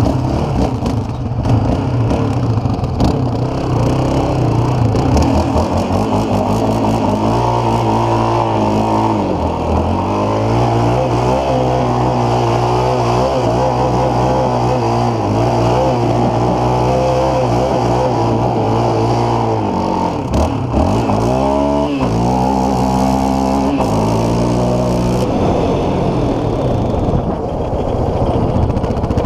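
Sport quad's engine revving hard and held at high revs through donuts on dirt, dropping off sharply and climbing again about ten seconds in and again about two-thirds of the way through.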